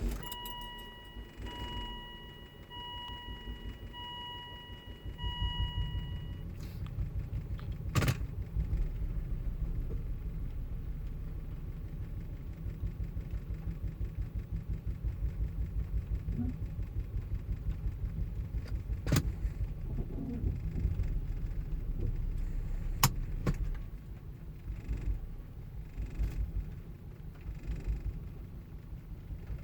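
Volvo engine idling roughly, with an uneven, pulsing low rumble that grows louder about five seconds in. For the first six seconds a dashboard chime beeps about once a second, and a few sharp clicks stand out later on.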